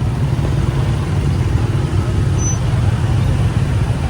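Steady low rumble of city traffic and crowd noise, with no bangs.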